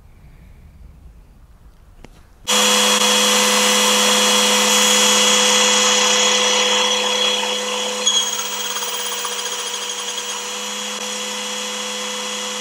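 Quiet room tone, then about two and a half seconds in an electric motor starts suddenly and runs loud and steady with a hum and a high whine, easing off a little after about eight seconds.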